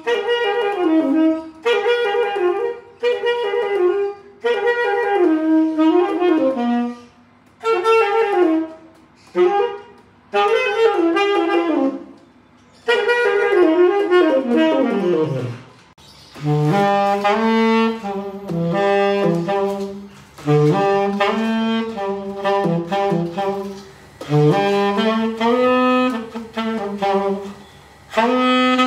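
Tenor saxophone played in short melodic phrases with brief pauses. About 15 s in a run sweeps down into the instrument's low register, after which the playing turns to longer held notes in a lower middle range.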